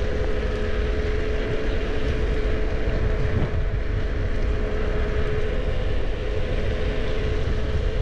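Wind buffeting an uncovered camera microphone, with no windsock, while riding a bicycle fast: a heavy, steady rumble with a steady hum running under it.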